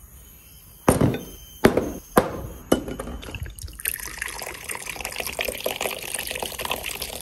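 Four sharp clacks of tableware and dishes set down on a metal tabletop, then clear liquor poured from a bottle into a small glass, a steady splashing pour of about four seconds.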